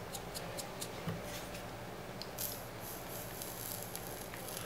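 Faint quick clicks of a vape mod's fire button being pulsed to fire the freshly wicked coil, several a second at first, over a steady low hum; a faint hiss comes in about halfway.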